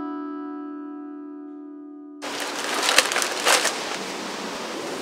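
A single plucked-string note rings and slowly fades. About two seconds in it cuts off, and a plastic food wrapper is crinkled and rustled by gloved hands, with a couple of sharp crackles about a second apart.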